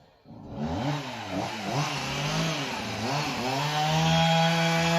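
Chainsaw engine running, revved up and down a few times, then held at a steady high speed from about three and a half seconds in.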